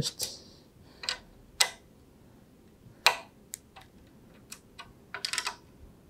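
A screwdriver working the screws of a metal bracket to loosen it: scattered sharp clicks and taps of metal on metal, with a quick run of clicks near the end.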